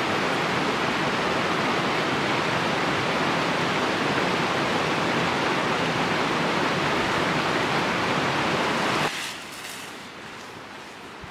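Steady rushing of a mountain river, a loud even noise that drops abruptly to a faint hiss about nine seconds in.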